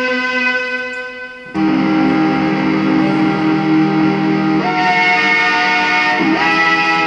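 The Quadrofeelia, a home-built electronic pedal-steel instrument with ribbon sensors driving an FM synthesizer, played as a sustained chord. The first chord fades out, a new chord is struck about one and a half seconds in, and its notes slide in pitch like pedal-steel bends near the end.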